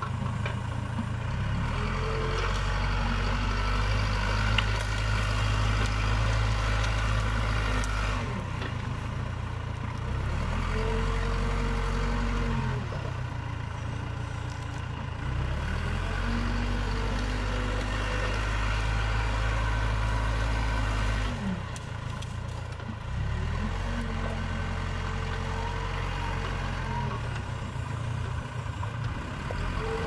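Case 580 Super K backhoe loader's diesel engine running under load as its front bucket pushes into brush. The engine note dips and rises again several times.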